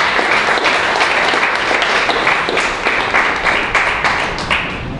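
Audience applauding, many hands clapping at once; the applause dies away shortly before the end.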